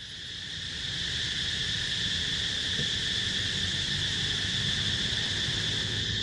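A steady high-pitched drone of insects, fading in over the first second, with a low rumble underneath.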